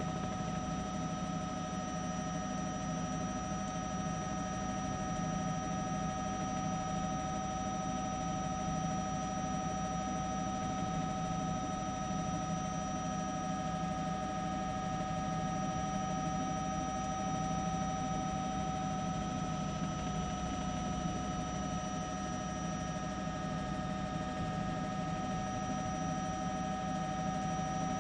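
News helicopter's turbine engine and rotors: a steady drone with several constant whining tones, one of which sags slightly in pitch about two-thirds of the way through.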